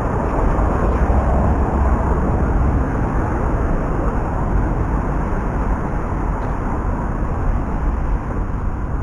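Steady city traffic noise: a continuous low rumble of passing vehicles with no single event standing out.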